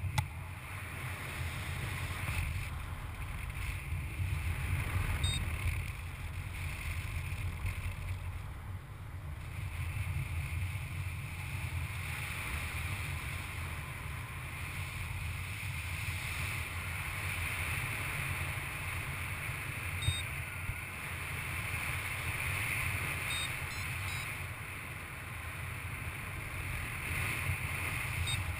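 Wind rushing over the camera microphone of a paraglider in flight: a steady low rumble with a hiss over it that swells and eases slowly.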